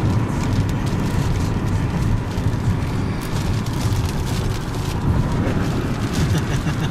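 Strong downburst wind and heavy rain buffeting a car, heard from inside the cabin as a loud, steady low rumble with a hiss of rain over it.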